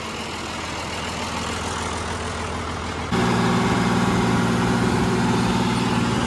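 John Deere tractor's diesel engine running steadily. It grows slowly louder at first, then about three seconds in it jumps to a louder, even drone heard from the driver's seat as the tractor travels.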